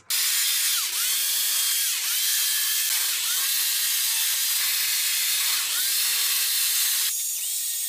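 Small Stihl chainsaw cutting into wood, a steady, hissy high-pitched sound that starts abruptly and drops somewhat about seven seconds in. The chain is notching the feather lines into a carved owl.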